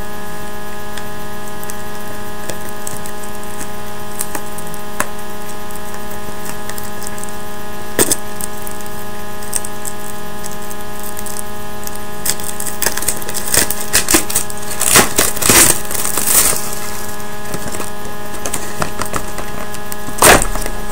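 Crackling and crinkling of packaging as a sealed trading-card hobby box is torn open, in a cluster of bursts in the second half, with a sharp click about eight seconds in and another near the end. A steady electrical hum sits underneath throughout.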